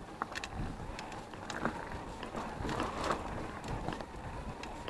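Mountain bike rolling over a rough dirt and stone trail: tyre noise on the ground, with frequent rattles, clicks and knocks from the bike over the bumps.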